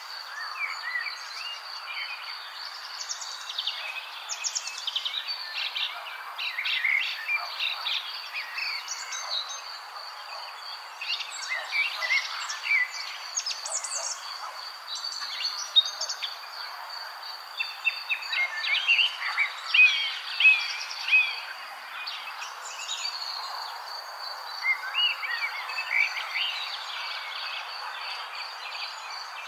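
Birds chirping and calling in many short notes over a steady, high, unbroken insect trill.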